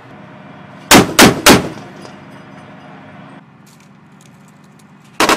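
Three heavy cannon shots in quick succession, about a third of a second apart, from the LAV-25's 25 mm chain gun, each ringing out afterwards. Just before the end a rapid burst of automatic fire starts at about a dozen rounds a second.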